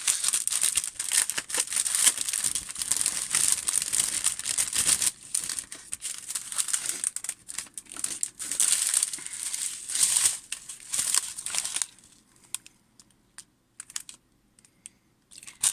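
Plastic packaging crinkling and rustling as small bags of diamond painting drills are handled, dense for most of the time, then giving way to a few light clicks and taps about twelve seconds in.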